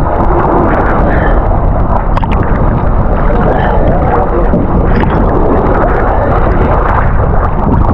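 Choppy sea water sloshing and splashing right at the microphone beside a wooden outrigger fishing boat, with heavy wind rumble on the mic and faint crew voices.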